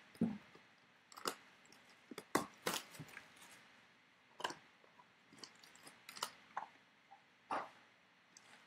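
Clear plastic wrapper crinkling as it is handled and crumpled, along with trading-card packs being handled and set down on a tabletop: a series of short, irregular crackles and taps.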